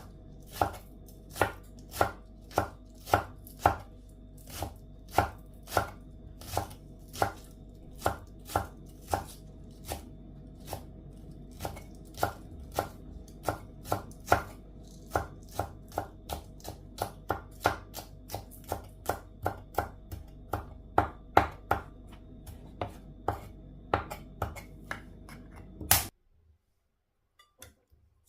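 Knife chopping food on a cutting board in steady, even strokes about two a second, over a faint steady hum; the chopping stops suddenly shortly before the end.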